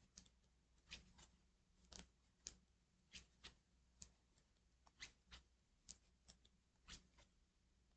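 Faint, irregular clicks of knitting needles as stitches are worked, about two a second, over a quiet room hum.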